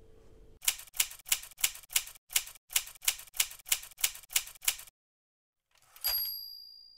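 Typewriter sound effect: a run of sharp key strikes, about four to five a second, for some four seconds. After a short pause comes a single carriage-return bell ding that rings out and fades.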